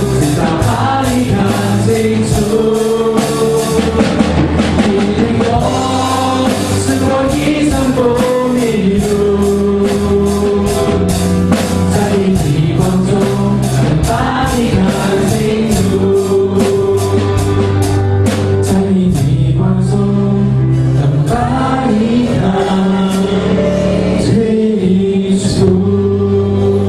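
Voices singing a Mandarin worship song together in a live service, with instrumental accompaniment and a steady beat.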